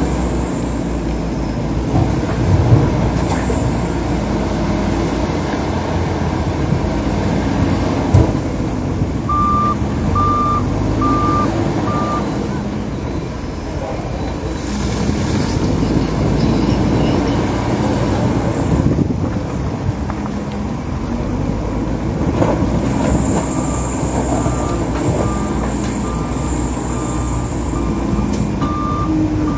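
Heavy earthmoving machine's diesel engine running, with a reversing alarm beeping about once a second: four beeps a third of the way in, and another run of beeps near the end.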